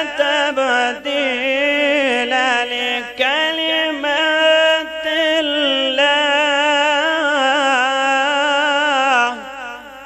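A man reciting the Quran in the melodic tajweed style: one long, ornamented phrase with held, wavering notes, trailing off about nine seconds in.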